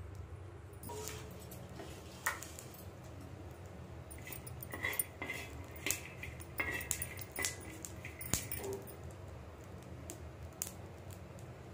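A steel spoon stirring and scraping peanuts as they dry-roast on a blackened griddle: irregular clinks and scrapes of metal on the pan with the nuts rattling, from about two seconds in, over a steady low hum.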